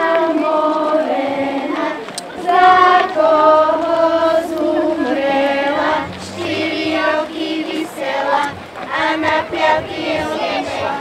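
A group of children and women singing a folk song together in unison, with long held notes; after about six seconds the phrases become shorter and more broken.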